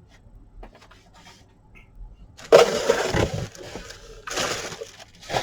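Parcel packaging being handled: a few light clicks, then three loud bursts of rustling and crinkling as the contents and papers are moved about.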